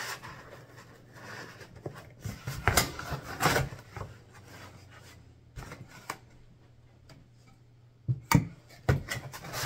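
Packing foam rubbing and scraping as a microphone is worked out of its foam insert in a cardboard box. A few sharp knocks follow near the end as the box and parts are moved on the table.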